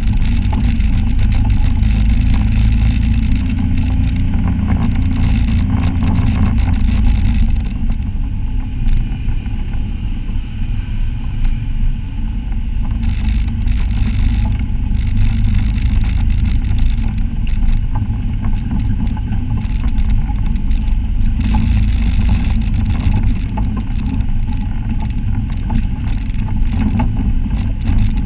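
Side-by-side UTV driving along a rough dirt trail: its engine runs with a heavy low rumble throughout, over scattered knocks and rattles from the machine going over the rocky ground.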